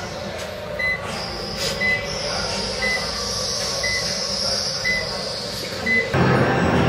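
A short high electronic beep repeating about once a second over a steady mechanical whir and hiss.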